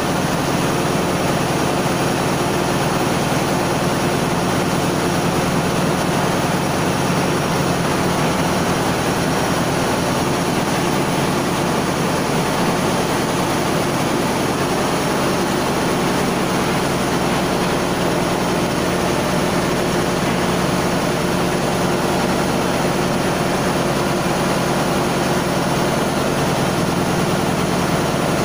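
Steady drone of a ship's engine-room machinery running: an even low hum under a wide hiss.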